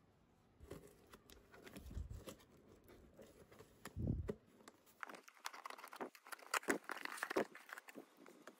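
A cardboard shipping box being cut and opened: scissors cutting the packing tape, then a run of sharp crackling and tearing from about five seconds in as the cardboard is pulled open. Before that there are only faint handling thumps.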